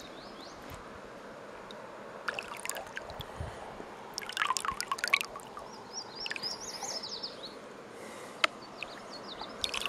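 Water sloshing and trickling in a plastic gold pan of river sand as it is worked in a shallow river, with a few short bursts of splashing.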